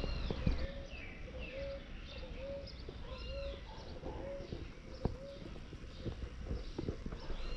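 Bird calling outdoors: a short arched note repeated about every half second, with higher chirps over it and scattered knocks.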